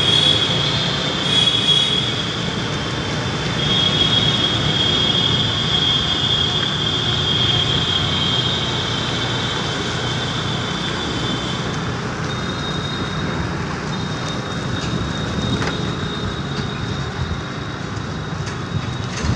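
Motor vehicle on the move, a steady engine and road-and-wind noise, with a steady high whine that is strongest for the first twelve seconds or so and then fades back.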